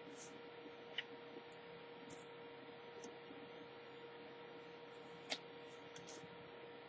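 Near silence: a steady electrical hum of room tone, with two faint small clicks, one about a second in and one a little after five seconds.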